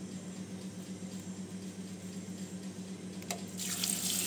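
A faint steady hum, then a click about three seconds in, and a kitchen tap starts running: water splashes into a stainless-steel sink over coriander being rinsed by hand.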